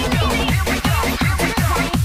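Electronic dance music: a fast, driving club track with a steady kick-drum beat and sliding synth lines.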